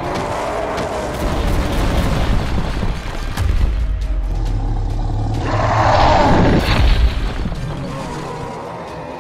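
Background music with deep booming impact sound effects of a cartoon fight, and a louder burst of noise about six seconds in that falls in pitch.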